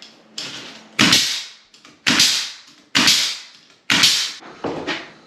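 Door jamb being nailed off through its shims: five sharp nailing shots about a second apart, the first one lighter, each fading quickly.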